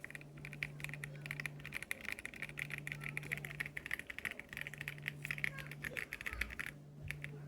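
Rapid, continuous typing on a Royal Kludge R75 mechanical keyboard with tactile brown switches: a dense run of key clicks that thins briefly near the end.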